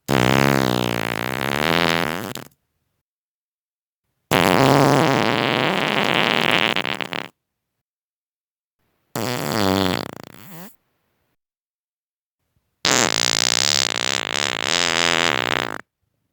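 Four separate human farts, each one to three seconds long, with silence between them. The first falls in pitch, and the second and fourth are the longest.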